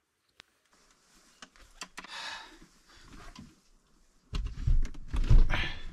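Gear being loaded into a car: a portable generator is handled and set into the cargo area, with rustling and a few light knocks, then a louder run of bumps and scraping about four seconds in.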